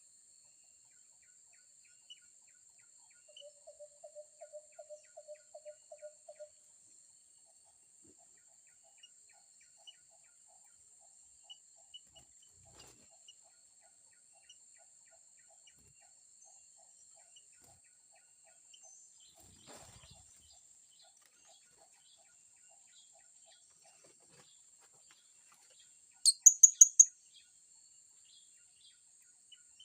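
Birds calling over a steady high insect drone: a run of about ten low, evenly spaced notes a few seconds in, then near the end four loud, sharp, high-pitched calls in quick succession.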